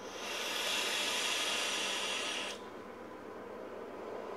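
Steady hiss of a long draw on a vape's rebuildable dripping atomizer fitted with flat-wire coils: air pulled through the airflow holes over the firing coil. It lasts about two and a half seconds and cuts off sharply.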